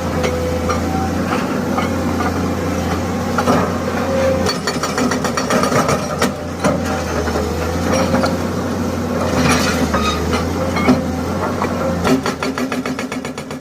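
Excavator diesel engine running, with the rapid, even hammering of a hydraulic rock breaker on concrete. Both fade out near the end.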